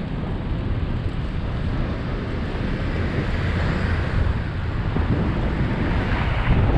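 Wind buffeting an action camera's microphone on a moving bicycle, a steady low rumble with road and traffic hiss over it, growing slightly louder.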